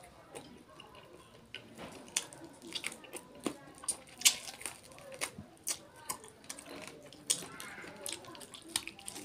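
Wet, close-miked eating sounds: lip smacks, sucking and chewing as curried duck meat is gnawed off the bone by hand, with many sharp, irregular clicks.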